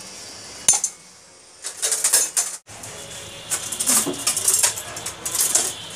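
Metal clinking and clicking of tools and fittings as a diesel fuel injection pump is mounted on a test bench: one sharp click under a second in, then bursts of light clinks. After a short break a low steady hum runs under the clinks.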